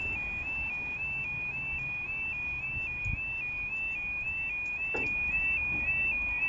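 Level crossing warning alarm sounding as the barriers lower: a two-tone electronic alarm alternating between two high pitches about twice a second, warning that a train is approaching.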